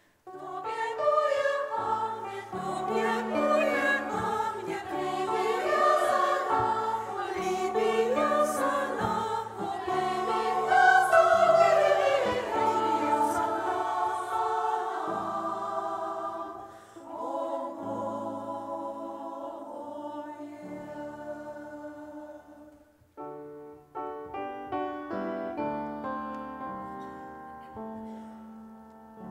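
Women's choir singing in several parts, swelling to a loud passage and then softening, with a brief break about three-quarters of the way through before the voices come back in.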